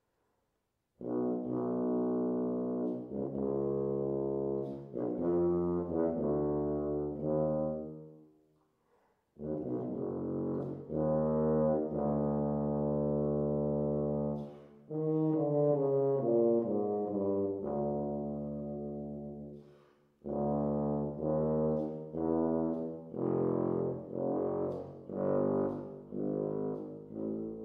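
Unaccompanied tuba playing an orchestral excerpt in detached notes, starting about a second in, in three phrases with two brief pauses between them.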